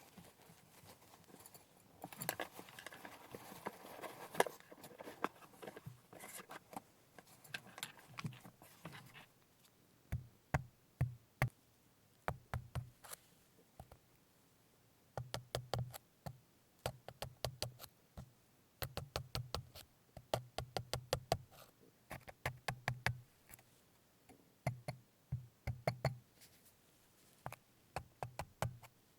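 Crunchy, gritty rustling for the first several seconds, then quick bursts of sharp knocks with a dull thud under them, several knocks a second in groups, as something hard is struck or tapped at the work surface while preparing food.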